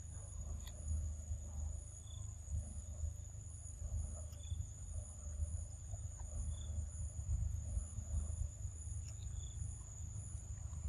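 Insects chirring steadily with one high, even tone and a faint pulsing trill above it, over a low rumble. A few short high chirps come now and then.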